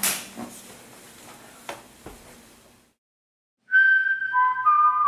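A sharp hand slap from a high-five at the start, fading away over the next few seconds. After a short silence, a whistled tune of a few held notes comes in about three and a half seconds in, louder than the slap, stepping from a higher note down to lower ones.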